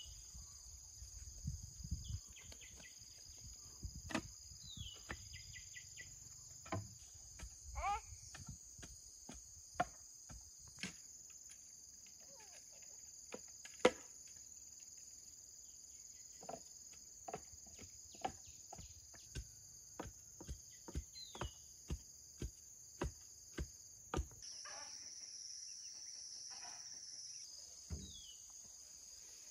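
Steady high-pitched chorus of crickets or similar insects, with a bird's short falling chirp a few times. Over it comes a series of sharp knocks: scattered at first, then fairly even at about one and a half a second in the second half, the loudest about halfway through.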